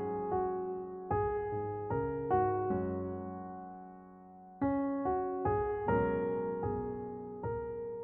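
Background music: a soft piano or electric piano playing slow chords, each chord struck and left to fade, with a brief lull about four seconds in.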